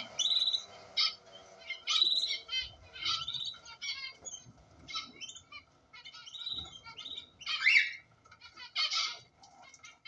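Cockatiel chick's rapid, raspy begging chirps in short bursts as an adult cockatiel feeds it beak to beak, the loudest burst near the end.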